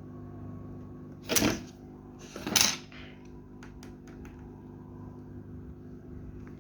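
A steady electrical hum runs underneath while screws are taken out of a smartphone's back frame. Two loud, short rushes of noise come about one and two and a half seconds in, followed by a few light clicks of small metal parts.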